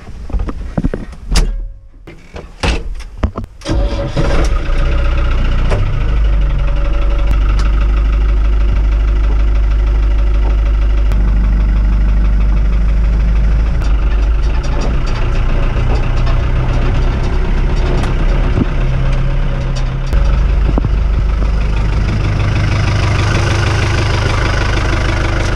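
A few knocks and clunks as the tractor cab door is opened and the driver climbs in. About four seconds in, the Fiat 65-90 tractor's diesel engine starts and then runs steadily.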